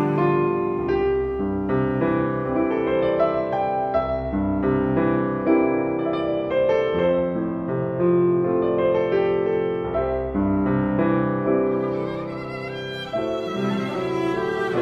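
Piano trio of violin, cello and Yamaha grand piano playing a traditional pastorale, with the violin's line brightening near the end.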